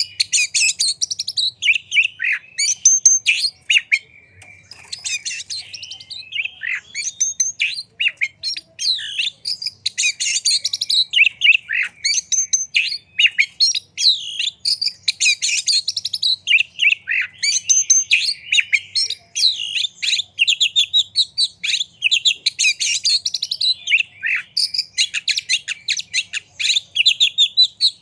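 Male oriental magpie-robin singing a long, fast, varied song of short whistled and chirped notes, with a brief pause about four seconds in.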